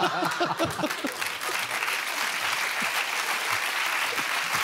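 Studio audience applauding, with laughter in the first second.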